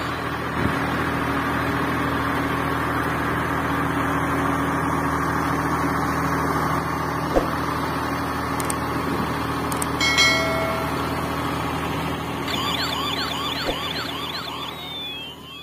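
A steady engine-like drone with a low hum. About ten seconds in, a couple of clicks are followed by a short chime. Near the end comes a run of quick rising-and-falling electronic whistles.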